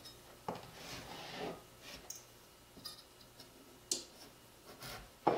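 Chef's knife cutting a raw butternut squash in half lengthwise on a cutting board: faint scraping as the blade is worked through the hard flesh, with a few light clicks and knocks, the sharpest about four seconds in and just before the end.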